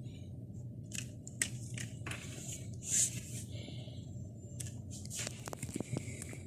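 Faint handling noises, scattered short rustles and scrapes, with a few small clicks about five seconds in, over a low steady hum.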